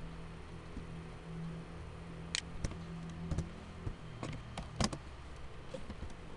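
Computer keyboard keys being pressed while editing code: a handful of scattered, irregular clicks starting about two seconds in.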